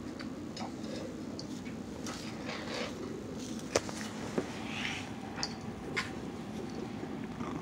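Handling and play noises: rustling, with a few sharp taps and clicks as a hand wrestles with a cat on a wooden floor, the loudest a little under four seconds in, over a steady low hum.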